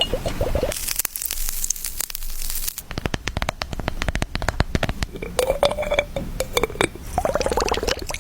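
Close-miked ASMR trigger sounds from objects being handled, changing every few seconds: a crinkling, scratchy hiss, then a fast run of taps and clicks, then short squeaky rubbing strokes near the end.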